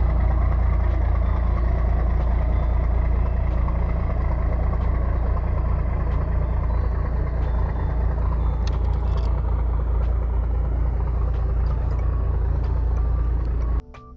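A steady, loud, low mechanical drone, like an engine running at a constant speed, that cuts off suddenly near the end.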